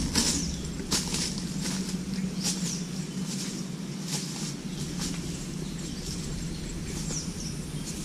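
Forest ambience: short irregular rustles and crackles, such as leaf litter or undergrowth give underfoot, with a few faint high bird chirps over a steady low hum.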